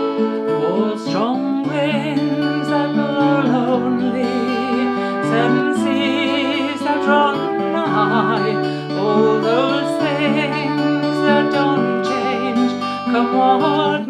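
Folk song in the key of D: an acoustic guitar strummed under a woman singing, with a concert flute playing along.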